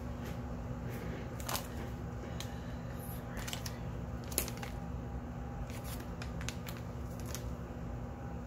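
Small paper muffin-mix packets being handled on a kitchen counter: scattered rustles and sharp clicks over a steady low hum.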